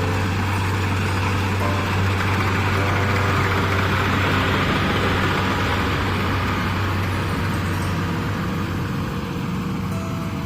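Kubota DC70 combine harvester running steadily while harvesting rice: a constant diesel engine drone with the rush of the threshing machinery, growing louder through the middle.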